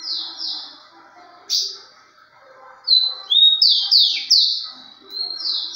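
Rufous-collared sparrow (tico-tico) singing: high clear whistles, each phrase a held note followed by a few quick falling slurred notes. It sings a short fragment at the start and a single note about a second and a half in, a full phrase about three seconds in, and another near the end.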